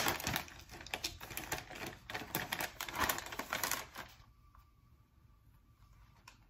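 Plastic snack bag of honey butter potato chips crinkling and rustling as it is handled, a dense run of quick crackles that stops about four seconds in.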